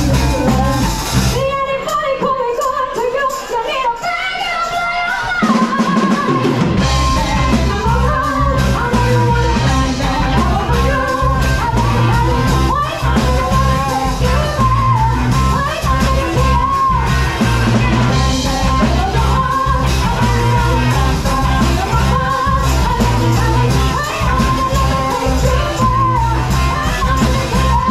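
Live rock cover band playing: a female lead voice singing over electric guitars and drums. Shortly after the start the bass and drums drop out for a few seconds, leaving mostly voice, then the full band comes back in about five seconds in and plays on steadily.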